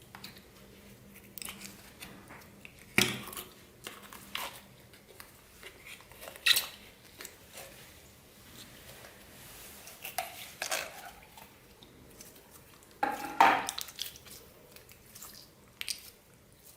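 Clear slime with plastic beads mixed into it being worked in a container: irregular squishing with sharp clicks of beads and utensil against the container. The loudest clicks come about three seconds in, about six seconds in, and near the end.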